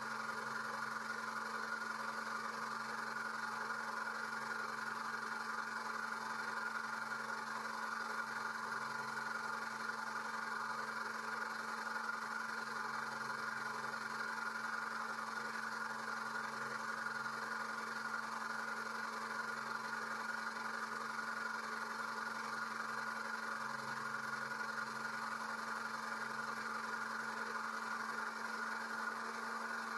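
Electric oil extractor pump running with a steady, even hum, sucking engine oil up through a thin tube for a topside oil change.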